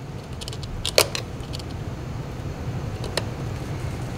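A few sharp small clicks of a metal wire retaining clip and a flat-blade screwdriver against a fog light housing as the clip is worked into place, the loudest about a second in, over a steady low hum.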